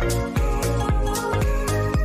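Background music with a steady beat and sustained synth chords.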